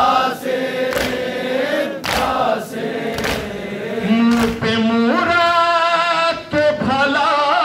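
A male reciter sings a nauha lament over a microphone, with a crowd of men joining in chorus on long held notes. Through the first half, sharp strokes fall about once every 1.2 seconds, the rhythm of matam, hands beating on chests.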